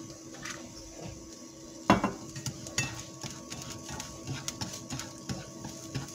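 Cookware clatter at a nonstick frying pan: a sharp knock about two seconds in, then a run of light clicks and taps as small beech mushrooms in a little olive oil are moved around the pan by hand.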